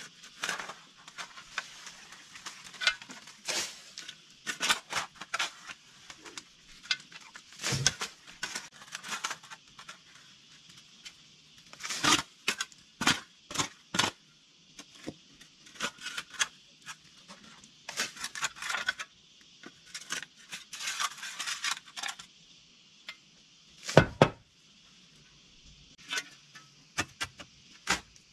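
Irregular knocks and clatters of hard objects being handled and set down, in quick clusters, with the loudest double knock near the end.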